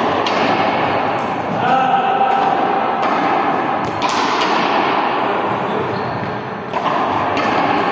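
Balls bouncing and thudding on a hard gym floor, repeatedly and at irregular intervals, in an echoing indoor hall, with voices in the background.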